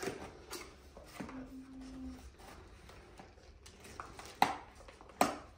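A few light knocks and clicks, the two near the end the loudest, with a brief low steady hum about a second in.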